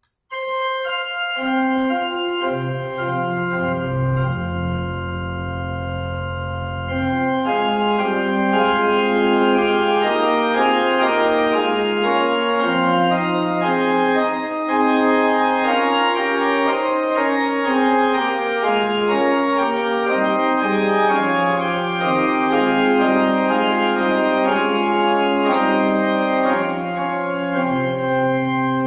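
Organ playing slow music in sustained chords that change every second or so, with low pedal notes about two seconds in and again near the end.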